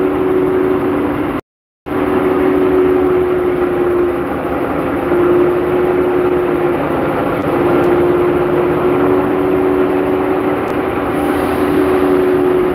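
Diesel engine of a Sri Lanka Railway S8 DMU power car running steadily, heard up close in the engine compartment: a loud, even drone with a steady hum held over it. The audio cuts out completely for a moment about one and a half seconds in.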